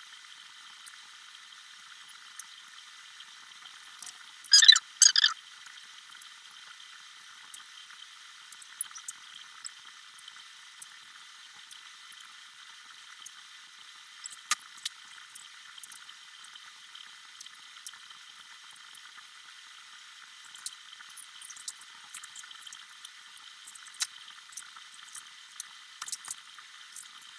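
Fast-forwarded sound of thermocol (styrofoam) being worked into acetone: faint scattered squeaks and clicks, with a brief louder cluster about four and a half seconds in.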